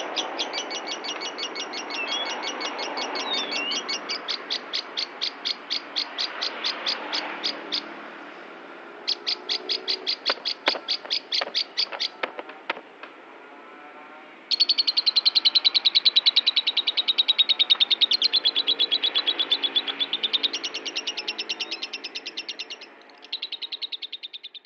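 Lovebird ngekek-ing: long runs of rapid, evenly repeated high chattering notes, several a second, broken by short pauses, loudest in the second half. Ngekek is the long unbroken chattering song prized in lovebird keeping.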